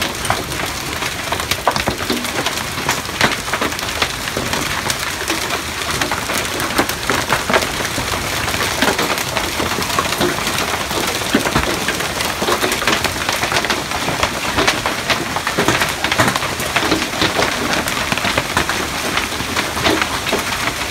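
Hailstorm: hailstones pelting the wooden deck and trees, a loud, dense, steady clatter of countless small sharp impacts.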